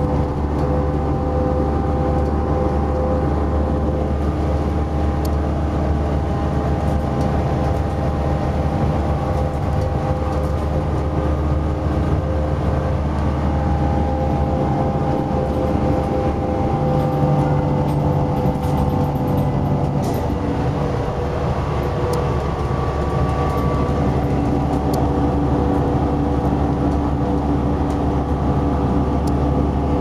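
Cummins ISL9 diesel engine and Allison transmission of a 2011 New Flyer XD40 transit bus running steadily at highway speed, heard from inside the passenger cabin with road noise. The engine's note shifts about halfway through.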